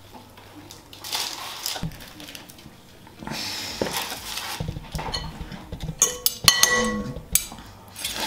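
Soft rustling of panko breadcrumbs as croquettes are rolled and set down on a paper-lined tray. In the second half this gives way to a run of sharp clinks, some with a short ring: a metal fork knocking against a glass bowl of beaten egg.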